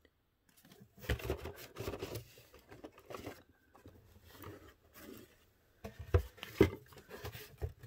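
Cardboard boxes being handled: a boxed Funko Pop figure is slid out of a cardboard shipping box with irregular scraping and rustling. A little after six seconds in come two sharp cardboard knocks, the loudest sounds, and another near the end.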